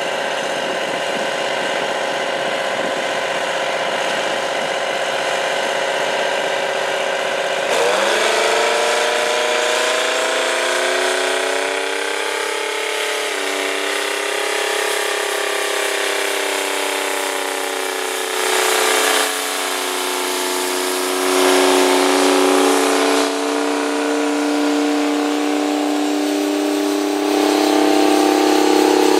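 The Detroit Diesel 12V92 two-stroke V12 of a Rite 750 Earthquake tractor, working under load while pulling a 20-bottom moldboard plow. About eight seconds in, the engine note changes abruptly and then climbs steadily over several seconds before holding a higher, steady pitch. There are a couple of brief louder stretches in the middle and a rise in level near the end.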